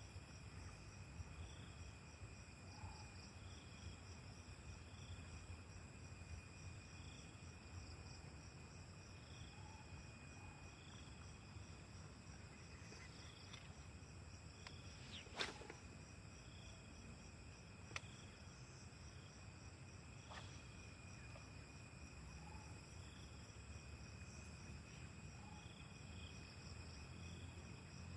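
Insects buzzing steadily, with a short high chirp repeating every second or so. A sharp click sounds about halfway through, and a fainter one a few seconds later.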